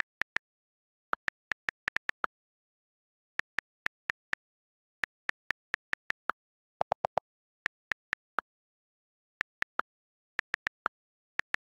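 iPhone on-screen keyboard click sounds as letters are typed: short, sharp ticks in uneven runs, one per keypress, with dead silence between them. About seven seconds in comes a quicker run of four lower-pitched clicks.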